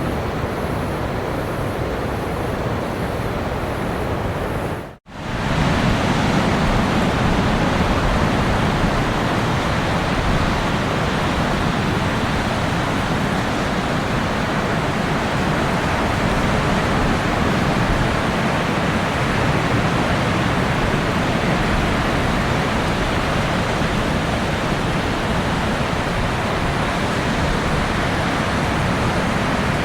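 Steady wash of ocean surf on a beach, a dense even noise without distinct wave breaks. About five seconds in it fades out for a moment and a new, slightly louder and deeper surf recording starts.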